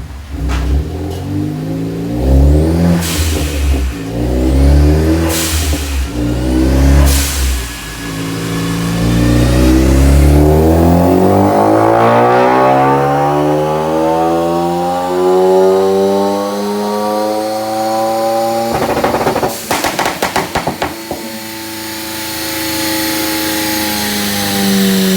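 Ford Focus ST engine through a Cobb turbo-back exhaust with a stage 2 pops-and-crackles tune: three short revs, each ending in a sharp crack, then a long climb in revs that holds high. About three-quarters of the way in comes a rapid string of crackles, after which it settles to a steadier drone.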